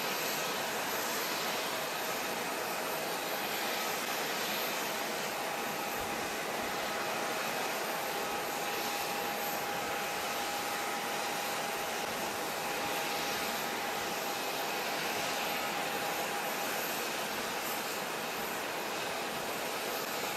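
Airbus A340-300's four CFM56 jet engines at taxi power, a steady rushing hiss with a faint, even whine.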